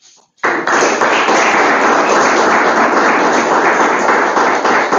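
Audience applauding, starting about half a second in: loud, dense, even clapping from many hands.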